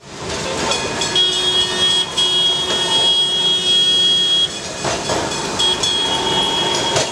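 Kolkata electric tram running along street rails, with a high steady whine that breaks off about halfway and returns near the end. A single knock comes a little after halfway, over general street traffic noise.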